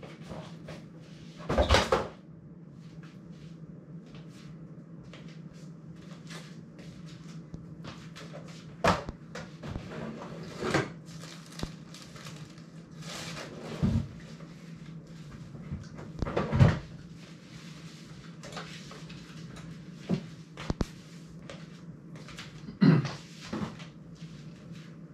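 Household rummaging: a drawer and cupboard opened and closed and objects handled and set down, giving irregular knocks and clatters, a few of them louder, over a steady low hum.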